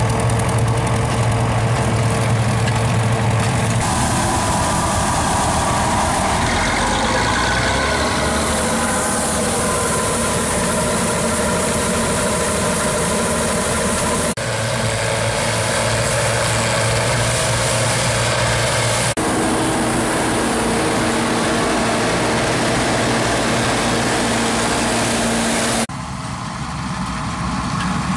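Diesel farm-tractor and combine-harvester engines running steadily, with the sound changing abruptly several times. For a stretch in the middle, grain pours from the combine's unloading auger into a tarp-lined trailer, adding a loud hiss.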